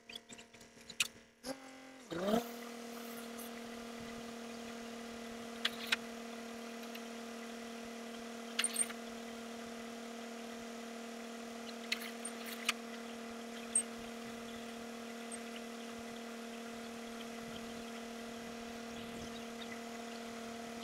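The engine of a tube-well boring rig comes up to speed with a quick rise in pitch about two seconds in, then runs at a steady, even speed. A few sharp metallic clanks sound over it.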